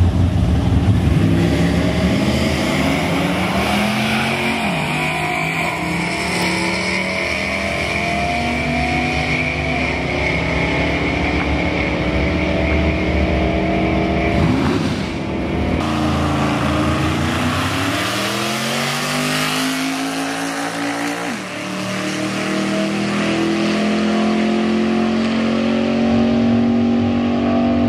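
Drag-racing cars accelerating hard down a quarter-mile strip. The engines rev with a climbing pitch that drops back at each gear shift, several times over.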